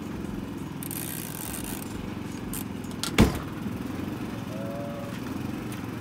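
Portable generator engine running steadily with a low hum. About three seconds in there is a single sharp knock, the loudest sound here.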